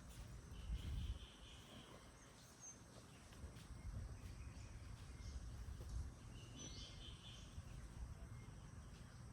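Quiet rural outdoor ambience with a low rumble, and two short high bird calls about five seconds apart.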